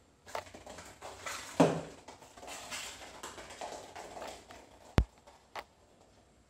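Aluminium-foil ball batted by a kitten, skittering and clicking across a laminate floor with a scatter of light taps and scrabbling. One sharp tap about five seconds in, and another soon after.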